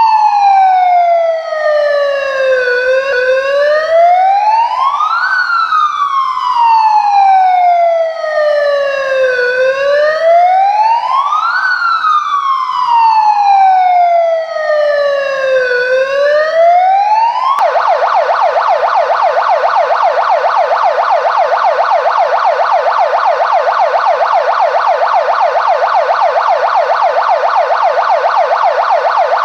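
Multi-tone electronic siren sounding loudly through its horn speaker. It plays a slow wail, gliding down and back up in pitch about every six seconds. A little over halfway through it switches abruptly to a fast warble of several short sweeps a second. These are two of its selectable warning tones.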